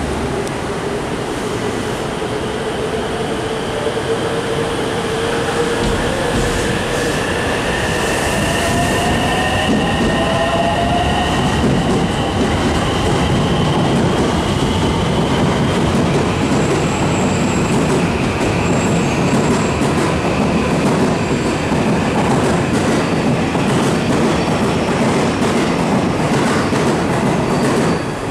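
JR West 225-series and 223-series electric multiple unit pulling out and accelerating, its traction motors giving several whines that climb slowly in pitch, over the rumble and clatter of wheels on the rails as the cars pass. The sound grows a little louder over the first half.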